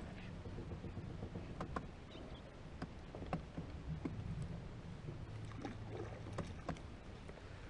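Faint low hum of a small boat's motor, with scattered light clicks and taps.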